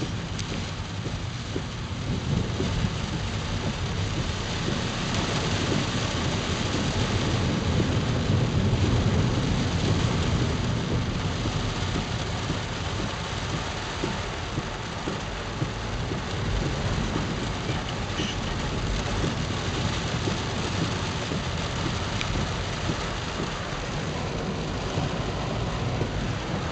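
Heavy rain drumming on a car's roof and windscreen, heard from inside the car, over a steady low rumble; it swells louder partway through.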